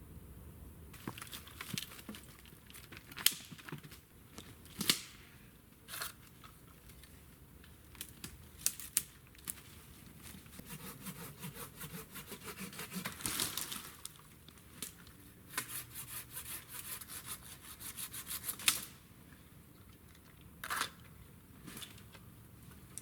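Hands-on bushcraft work with wood and brush: a string of sharp snaps and cracks mixed with rustling and scraping, and a run of quick, even strokes in the second half.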